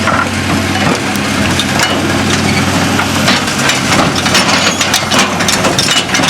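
John Deere 250G LC excavator's diesel engine running steadily, with a dense clatter of sharp cracks and clicks over it that grows busier in the second half.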